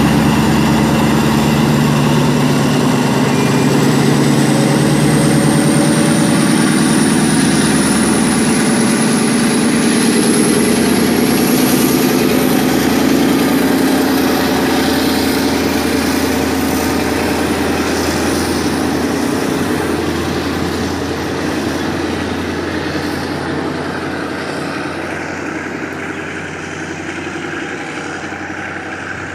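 Diesel-hauled passenger train rolling slowly past, the locomotive's engine running with a low hum and a high whine that rises slowly in pitch. The sound fades steadily over the second half as the train draws away.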